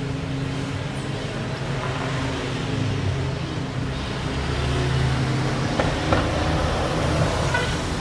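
Street traffic: a motor vehicle's engine running with a steady low hum over road noise, a little louder in the middle. A couple of short clicks come about six seconds in.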